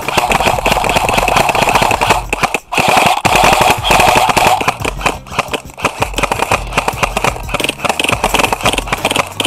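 Airsoft rifles firing long rapid strings of BBs, shots overlapping into a steady rattle, with a brief break about two and a half seconds in.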